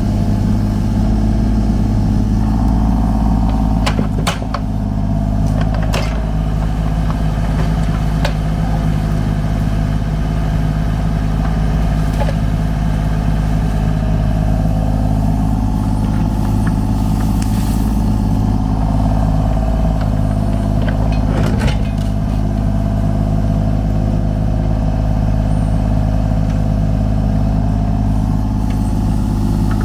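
Diesel engine of a Kubota U35-4 mini excavator running steadily under work, with a few sharp knocks, about four seconds in, a couple of seconds later, and again past the twenty-second mark.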